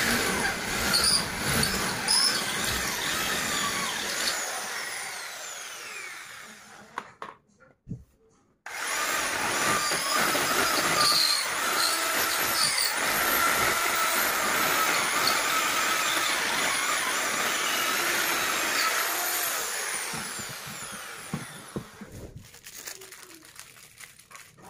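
Electric drill boring into a masonry wall in two long runs. The first fades out about six seconds in; after a brief gap, a second, longer run fades away near the end.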